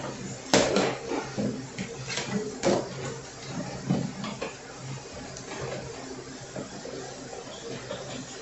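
Dishes and utensils clinking and knocking during hand dish-washing, with a few sharp clatters in the first half and softer knocks after, over a steady low hum.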